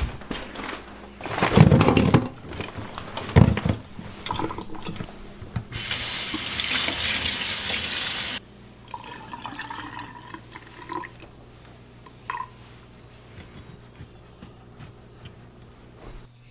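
Kitchen faucet running into a stainless steel sink for about three seconds, then shut off abruptly, as a freshly caught eel is rinsed. Before it come a few loud knocks and clatter in the sink.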